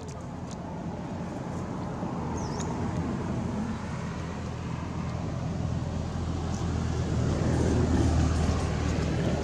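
Low rumble of a passing motor vehicle's engine, growing louder to its peak about eight seconds in.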